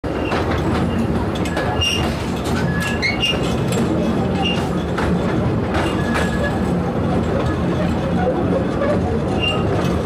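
Taipingshan forest railway's small Bong Bong tourist train running along its track, heard from inside an open carriage: a steady low engine drone with clicks from the rails. Brief high wheel squeals come several times as the train takes a curve.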